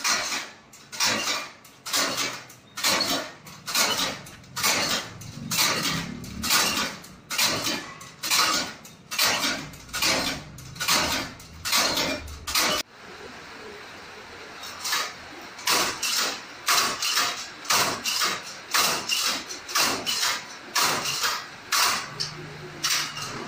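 Homemade four-row rice transplanter worked by hand, its steel planting arms and linkage clanking in a steady rhythm of about two strokes a second.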